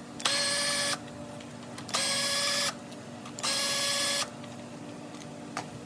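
Cordless drill-driver running in three short bursts of under a second each at a steady speed, backing out bolts.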